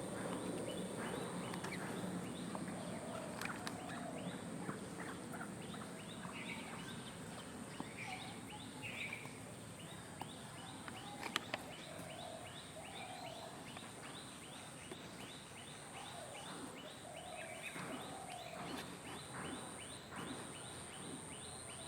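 Birds calling: short wavering calls come and go, and from about six seconds in there is a fast run of high chirps, several a second, over a steady thin high whine.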